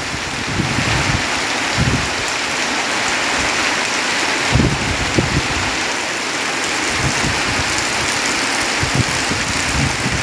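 Heavy rain pouring steadily, a dense even hiss, with a few brief low thuds scattered through it.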